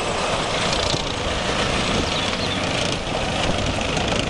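Main battle tank driving past on a paved road, its engine running steadily with the noise of its tracks.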